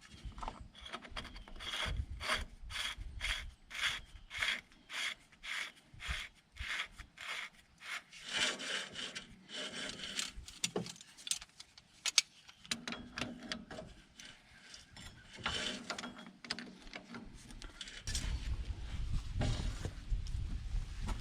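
A hand tool scrubs back and forth on metal in quick, even strokes, about two a second, for several seconds, then goes on in slower, uneven scrapes. It is cleaning up the threads of the truck's threaded spindle cap so the cap goes on and off more easily.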